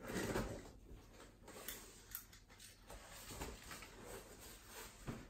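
Faint handling of a cardboard shipping box being opened: a short scrape at the start, then scattered small clicks and soft rustles.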